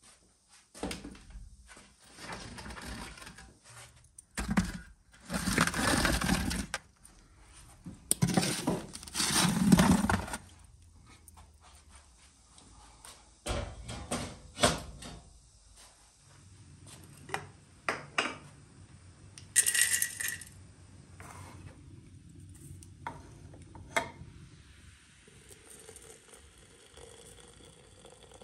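A metal baking tray scraping across the brick floor of a wood-fired oven in two long scrapes as the buns go in, then metal clanks from the oven door being shut. These are followed by a few scattered sharp clinks of metal and glass.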